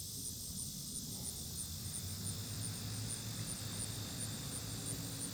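Outdoor ambience with a steady high insect chirring that pulses about three times a second, over a low rumble.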